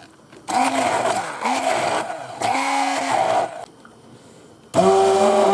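Electric hand blender churning pesto of basil, garlic, pine nuts, cheese and olive oil in a cup. Its motor runs for about three seconds with the pitch wavering as the blade works through the thick sauce, stops for about a second, then starts again near the end at a steady pitch.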